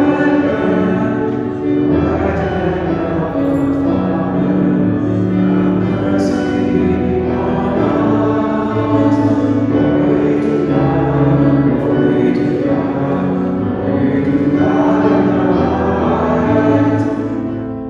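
A church congregation singing a hymn together, over sustained accompanying chords that change every second or two.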